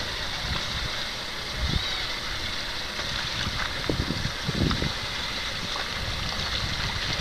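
Low, irregular rumble of wind buffeting the microphone, over faint sloshing of water around a person wading waist-deep.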